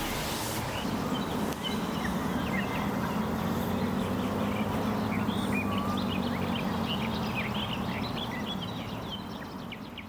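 Many small birds chirping and twittering in quick short calls over a low steady hum; the sound fades out near the end.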